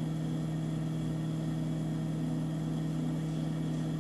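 Sewing machine's motor humming steadily at an even level as the seamstress stitches the skirt onto the garment.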